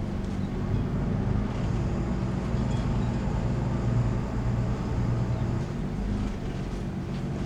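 Twin inboard diesel engines of a 47-foot Carver motor yacht running at low RPM while docking: a steady low drone with a slight swell in the middle.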